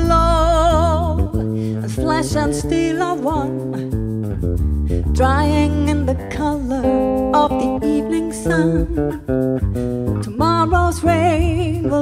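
Live band playing: a woman singing with vibrato over bass guitar, guitar, keyboard and drums.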